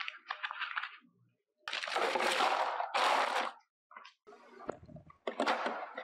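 Food containers and a bag of ice being packed into a plastic cooler: light clicks of containers, two loud rattling rushes about two and three seconds in, then lighter knocks as containers are set down inside.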